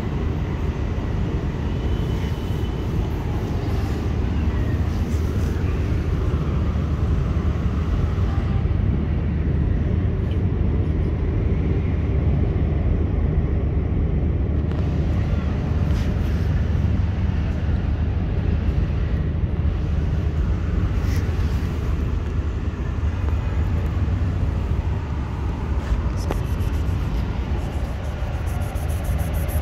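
Steady low rumble of outdoor city background noise, even in level throughout, with no clear sound from the cat.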